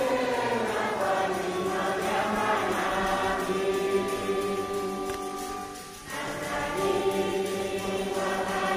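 A choir singing in long held notes in several voices, with a brief break about six seconds in.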